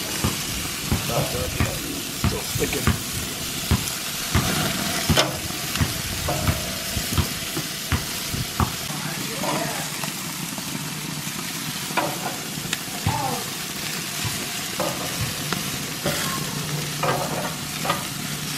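Chicken pieces sizzling on a hot grill, a steady hiss broken by frequent sharp clicks of metal tongs against the grate as the pieces are turned.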